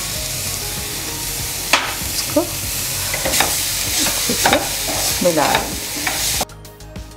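A spatula stirs and scrapes grated cauliflower masala around a non-stick kadhai, with the filling sizzling steadily as it fries. Several scrape strokes carry a short squeak that falls in pitch. The sizzle drops off suddenly near the end.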